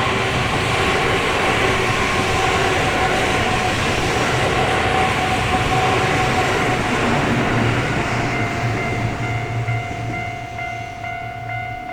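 A train passing close by the level crossing: a loud, steady rumble and rattle of the wheels that eases near the end. Under it the crossing's electronic alarm bell rings in even strokes about twice a second, heard plainly once the train noise drops.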